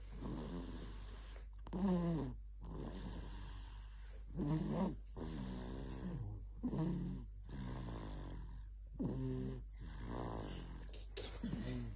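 Baby snoring in a steady breathing rhythm. A louder snore with a falling pitch comes about every two and a half seconds, with a softer snore between.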